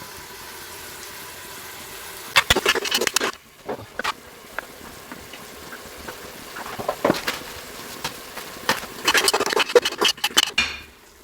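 Spoon stirring and scraping a cooking pot in several bursts of clattering strokes, over a steady sizzle of food cooking in the pot.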